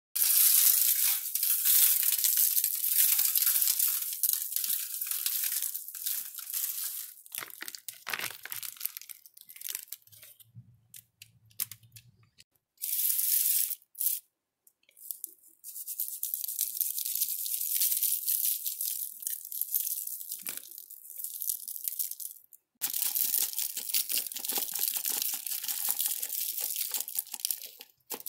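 Aluminium foil crinkling and tearing as it is handled and folded around food, in several long stretches of crackling with short gaps between.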